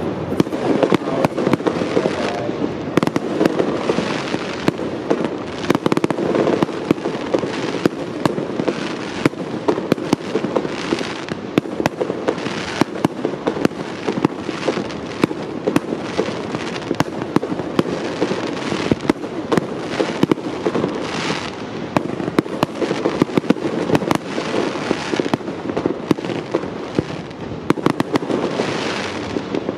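Aerial firework shells bursting in rapid succession, many sharp bangs a second.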